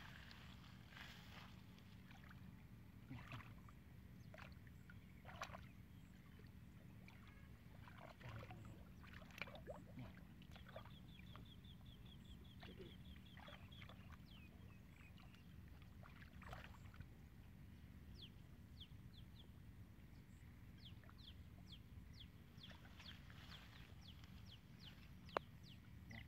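Faint splashing and sloshing of hands groping through a shallow muddy puddle, in scattered bursts. Faint high chirps and a short rapid trill sound in the background.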